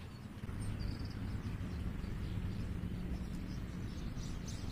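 Outdoor ambience: a low, steady hum that sets in about half a second in, with faint high chirps above it.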